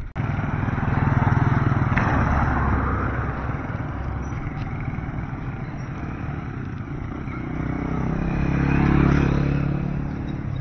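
Road traffic: motor vehicle engines and tyre noise passing on a paved road, loudest about a second in and again near the end.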